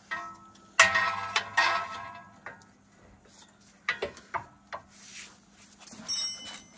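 Steel pry bar clanking against the car's front suspension as it is set and levered: a cluster of sharp metallic knocks in the first two seconds, the loudest about a second in with a short ring, then a few lighter taps around four seconds in.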